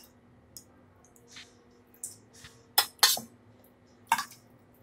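Steel spoon clinking and scraping as curd is spooned into a clay pot of water-soaked rice: a few light, separate clicks, the loudest pair about three seconds in.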